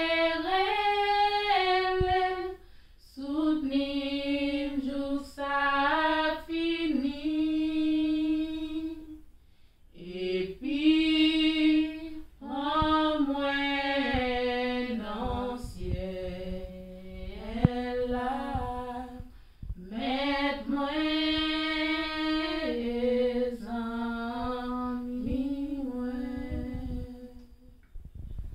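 Two women singing a worship song unaccompanied, a cappella, in held phrases with short breaks between them.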